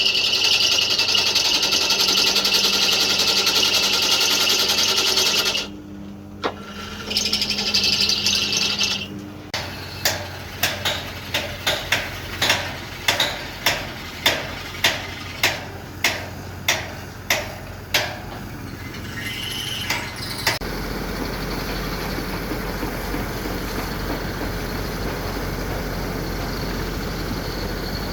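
A motorised tool runs with a high hiss over a low hum for about five seconds, stops, and runs again briefly. About twenty sharp knocks follow, two to three a second. From about two-thirds of the way through, a steady low engine rumble sets in.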